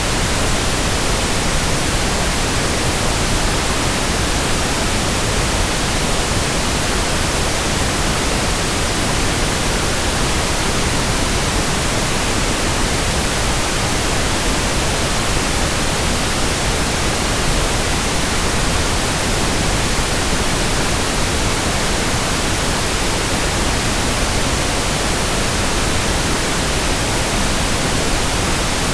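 Steady synthetic pink noise: an even, unchanging hiss spread across the whole range, with no tones, clicks or variation.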